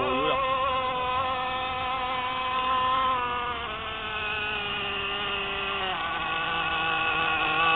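The CY 26cc two-stroke petrol engine of a homemade RC rigger boat buzzing at speed on the water. Its pitch sags about three seconds in, then climbs again around six seconds in and toward the end.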